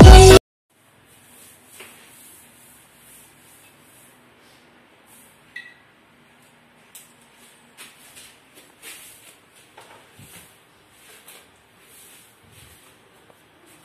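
Electronic music cuts off just after the start. Then come faint, on-and-off hissing and a few light clinks from a wok heating over a gas burner as cooking oil goes in.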